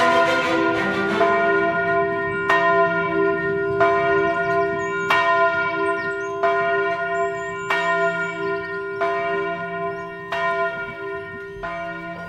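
A single church bell tolling slowly, about one stroke every second and a third, its hum carrying between strokes and the ringing slowly fading.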